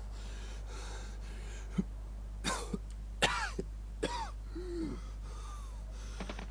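A person coughing three times in quick succession, each cough sharp and ending in a falling voiced tail, followed by a softer short voiced sound. A steady low electrical hum runs underneath.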